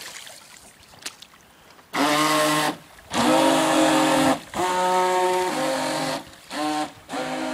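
RC speedboat's motor whining in about five bursts as the throttle is opened and closed, starting about two seconds in, each burst holding one steady pitch over a hiss of water spray.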